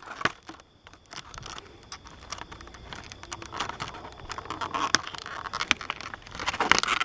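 Plastic blister packaging of small action figures crinkling and clicking as it is handled and the figures are worked free, with scattered light clicks and rustles that grow louder near the end.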